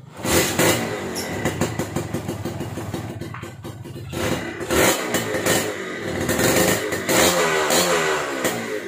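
Kawasaki Ninja RR 150cc two-stroke single on its stock exhaust, kick-started and catching at once, then revved on the throttle in repeated blips. The loudest revs come about five seconds in and again around seven seconds.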